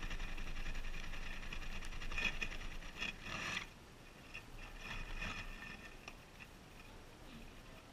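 Guinea pigs moving about in wood-shaving bedding close to the camera, with small scratchy rustles. Louder for the first three and a half seconds, then quieter as one walks away, with a few more rustles around five seconds in.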